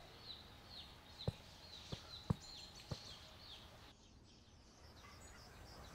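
Rural ambience: a bird calling over and over with short descending chirps, about two a second, with four sharp clicks about a second to three seconds in. About four seconds in the chirping stops and a faint, even background takes over.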